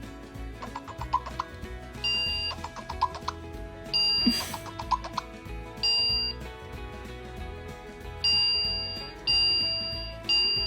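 Purse Pals electronic pet toy beeping: a sharp two-tone electronic beep about six times at uneven intervals, each fading quickly, over light background music.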